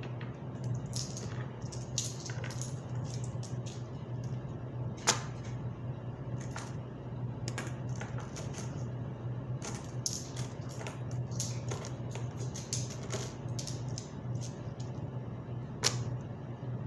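Metal coins clicking and clinking against one another as they are picked up and stacked by hand on a tabletop, in an irregular patter with two louder clinks, about five seconds in and near the end.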